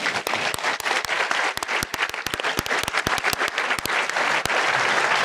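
Audience applauding, with sharper, louder claps close to the microphone standing out over the crowd for about the first four and a half seconds.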